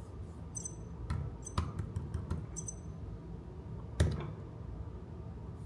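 A hand tapping, rubbing and pressing on the plastic head of an Emo desktop robot: light clicks, with a sharper knock about four seconds in as the hand presses down on the head, and a few faint high ticks in between.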